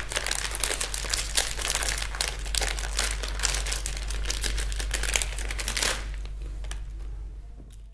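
Ice cream wrappers being torn open and crinkled by hand as two people unwrap ice cream bars: dense crackling that thins out about six seconds in and fades to quiet near the end.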